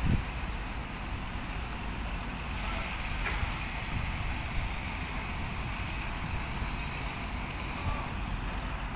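Steady rumble and hiss of construction-site background noise, with a short thump right at the start.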